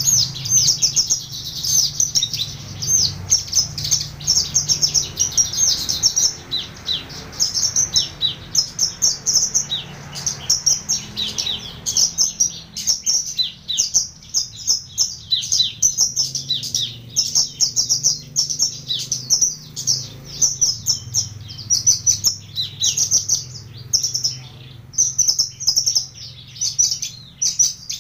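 Caged branjangan (Horsfield's bush lark), parva type, singing continuously in full voice: a fast, unbroken stream of high chirps and trills.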